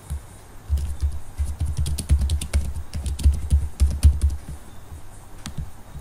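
Computer keyboard typing: a quick run of keystrokes for about three and a half seconds, each with a dull low thump, then a single separate click near the end.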